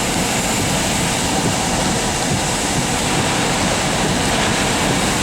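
Steady, loud rushing of storm wind close to a tornado, heard from inside the vehicle.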